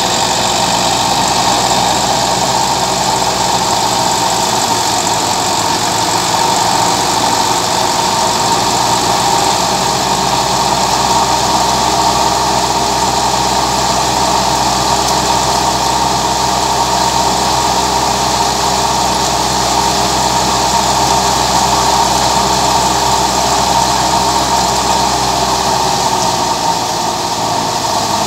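Massey Ferguson 260 tractor's diesel engine running steadily under load, driving a thresher, together with the thresher's spinning drum and fan. A steady high-pitched hum sits over the engine noise, unchanging throughout.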